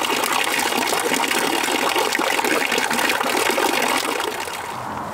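Water from a stone fountain splashing steadily into its basin, a dense, even rush that drops away a little after four seconds in.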